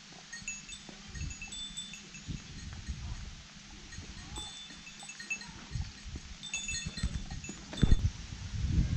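A small metal bell jingling in short, irregular rings, over low thumps and rumbles that are loudest near the end.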